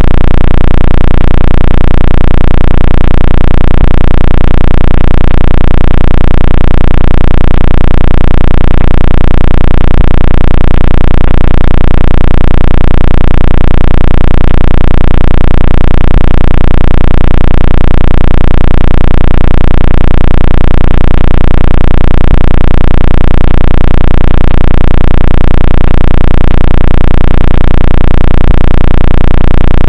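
Synthetic phone-speaker water-ejection tone: a very loud, distorted low bass tone pulsing about twice a second, under a steady higher hum.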